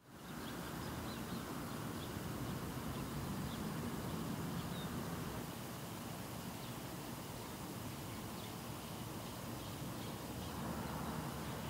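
Steady outdoor background noise: a low rumble under a hiss, with faint, short, high chirps dotted through it.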